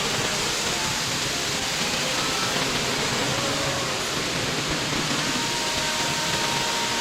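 Large waterfall roaring: a steady, even rush of falling water with no change in level.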